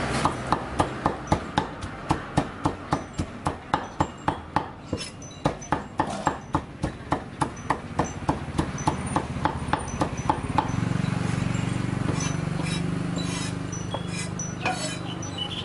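A knife chopping grilled river fish on a chopping board, in quick even strokes of about three a second. The chopping stops about ten seconds in, and a steady low hum with a few scattered clicks follows.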